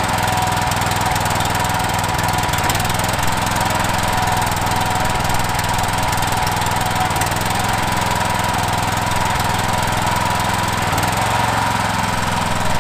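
Honda GX390 single-cylinder engine on a gas pressure washer running, its speed shifting up and down a few times. The engine runs properly only with the choke on and surges otherwise, which the owner puts down to a dirty carburetor jet.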